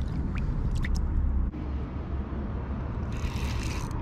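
Wind rumbling on the microphone, with two small water drips as a crappie is let back into the water. After an abrupt cut, a spinning reel is cranked with a dry whirring for the last second.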